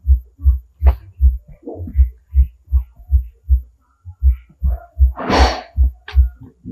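A low throbbing pulse repeating steadily about three times a second, over faint scratches and squeaks of a marker writing on a whiteboard. A louder rushing noise comes about five seconds in.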